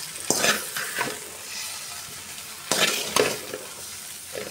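Metal spatula scraping and turning pieces of steamed moong dal cake with onions in a metal kadai, a few strokes about a second in and again near three seconds, over a low sizzle of oil on a low flame.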